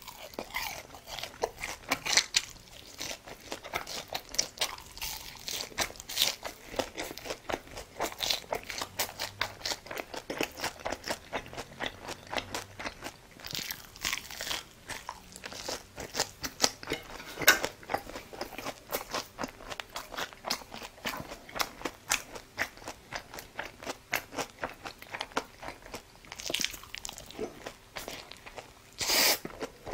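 A person eating: rapid crunching and chewing of food, with several louder crunches scattered through.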